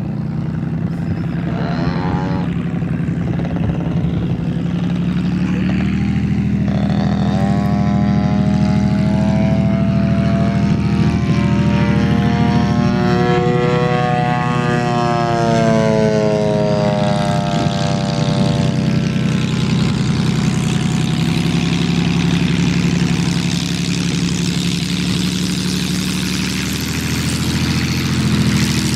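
Piston engine and propeller of a Katana aerobatic plane running continuously in flight overhead. Its pitch rises and falls as the plane manoeuvres and passes, most clearly about halfway through.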